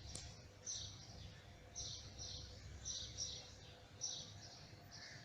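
A small songbird singing, repeating a short phrase of two or three high chirps about once a second, over a faint low background rumble.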